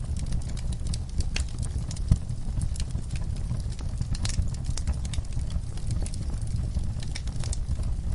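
Wood fire in a fireplace crackling: irregular sharp pops and snaps over a steady low rumble of the burning fire, with one louder pop about two seconds in.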